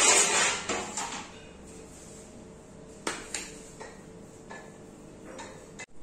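Aluminium pan being handled on a stone counter: a loud scraping rush at the start, then a few light knocks and clinks of metal.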